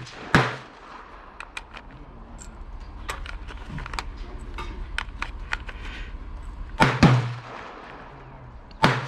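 Gunshots at a shooting range: one just after the start, two in quick succession about seven seconds in, and another near the end, each with a short echo. Fainter clicks and pops fall between them.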